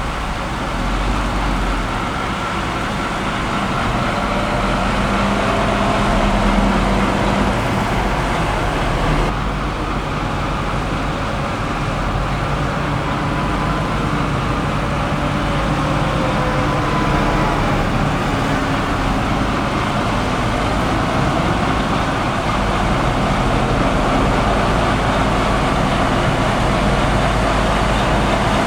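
Heavy diesel harvest machinery running steadily, with engine tones drifting slightly in pitch.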